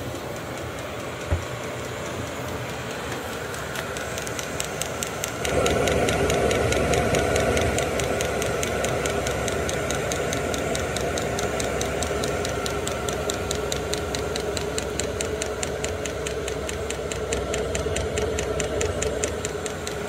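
Vevor 5 kW diesel air heater running, a steady fan-and-burner hum, with its fuel dosing pump ticking fast and evenly as it pumps fuel to the burner. The sound gets louder about five seconds in.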